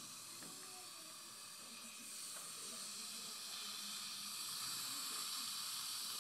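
Steady hiss of dental suction running from a NOLA dry-field retractor and suction device in the patient's mouth.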